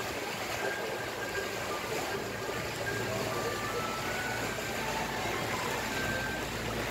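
River cruise boat's engine running steadily as the boat moves along, with a constant low hum under an even noise. Short high tones are scattered through it.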